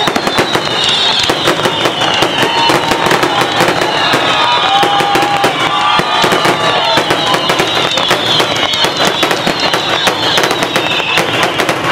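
Fireworks show: aerial shells bursting one after another in rapid, dense succession with continuous crackling. A wavering high-pitched tone runs through much of it.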